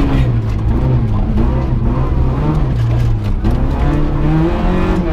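Car engine heard from inside the cabin while the car is driven, its revs rising, dropping sharply about three and a half seconds in, then rising again.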